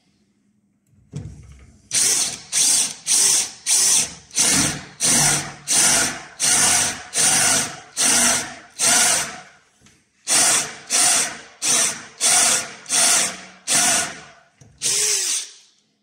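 Power drill with a 14 mm bit boring through a toilet cubicle door panel, run in about twenty short bursts of roughly half a second each, with a brief pause near the middle.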